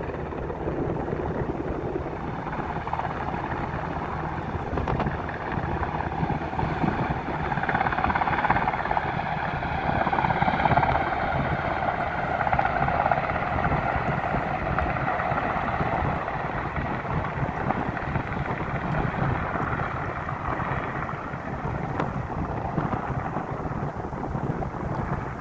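Firefighting helicopter's rotors running steadily as it hovers low over the river filling its slung water bucket, then climbs away carrying the full bucket.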